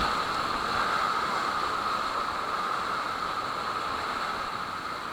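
Steady rush of fast-flowing river water, an even hiss with no distinct splashes or strokes.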